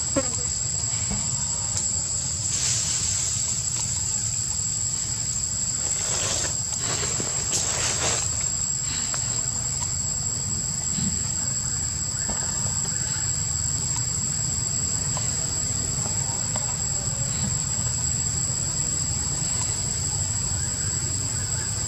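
Steady, high-pitched drone of insects chirring in the forest canopy, holding two unbroken tones, over a low steady rumble. A few short rustling bursts stand out in the first half.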